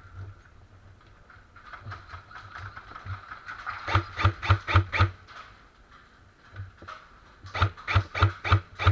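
Airsoft AR-15 rifle firing two quick strings of shots, about five or six sharp cracks each at roughly five a second, about halfway through and again near the end, with a few fainter shots before.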